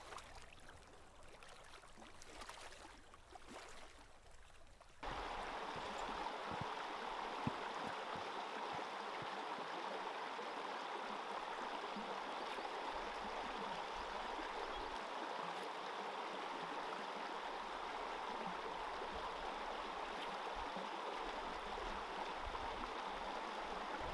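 A small rapid running over rocks into a lake gives a steady rush of water. It starts abruptly about five seconds in, after a few seconds of faint, calm-lake quiet.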